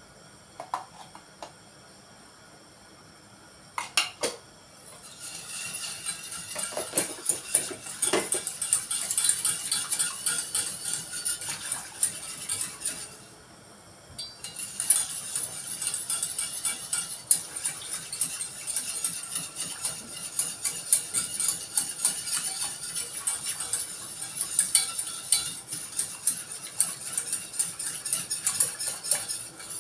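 Wire whisk beating béchamel sauce in a stainless steel pot: a fast, steady clinking and scraping of the wires against the pot. It starts after a few knocks about four seconds in and stops briefly around the middle.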